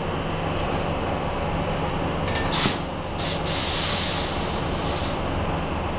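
Spray-booth exhaust fans running with a steady hum. A few short bursts of hiss come in the middle.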